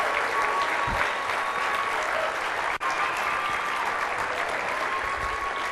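Large audience giving a standing ovation: sustained, dense clapping from hundreds of people, briefly cutting out for an instant a little under three seconds in.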